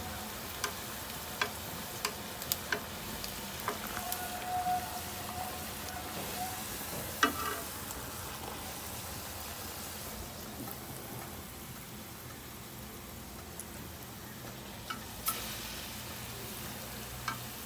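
Rose cookie batter deep-frying in hot oil in an iron kadai: a steady sizzle with sharp clicks and taps now and then.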